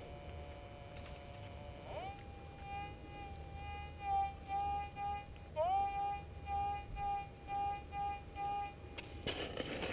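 Metal detector's audio tone: a steady hum that rises in pitch about two seconds in, then beeps about twice a second as the coil passes over a target. A short rasping noise comes near the end.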